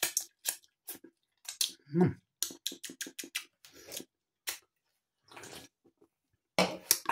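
Dry, lattice-shaped salt and vinegar potato snacks crunched while being chewed: a quick, irregular run of sharp crackles that thins out after about four and a half seconds. It is the hard, dry crunch of the snack.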